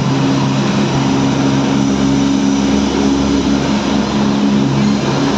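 Toy train's engine running steadily while under way: a loud, even hum that holds the same pitch throughout.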